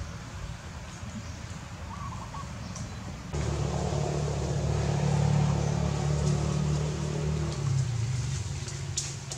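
A low engine hum from a motor vehicle that grows suddenly louder about three seconds in and eases off near the end.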